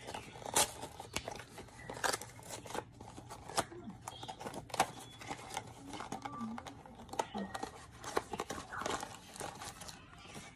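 Small cardboard blind box and its foil wrapper being torn open and crinkled by hand: an irregular run of sharp crackles, rips and rustles.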